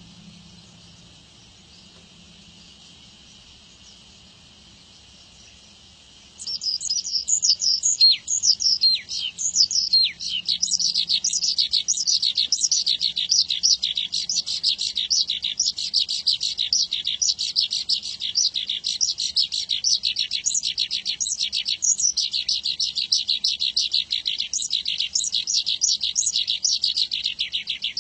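Javan bush lark (branjangan) singing a long, rapid, unbroken song of quick chirps and down-slurred notes, starting about six seconds in. Before it, only a faint steady high hiss.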